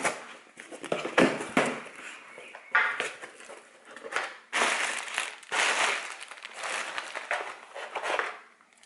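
Cardboard shipping box being opened by hand: packing tape cut and torn and the flaps pulled apart, making a run of uneven crinkling, scraping bursts.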